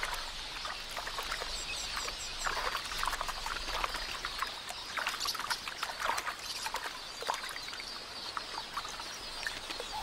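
A flock of red-billed queleas twittering continuously, mixed with water splashing and sloshing as terrapins grab at the birds from below.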